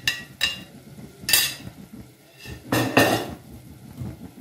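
Kitchen utensils clinking and knocking against an aluminium cooking pot: a few separate sharp clinks with short ringing, then a longer clatter about three seconds in.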